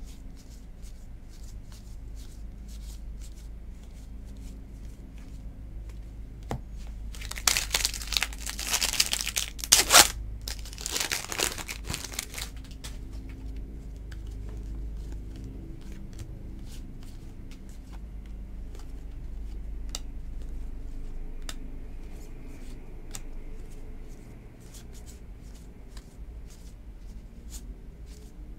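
A 2019 Topps Series 2 jumbo pack wrapper is torn open and crinkled for about five seconds, starting roughly a quarter of the way in, with one sharp rip in the middle. Before and after, trading cards are flicked through by hand, making faint light ticks of card edges.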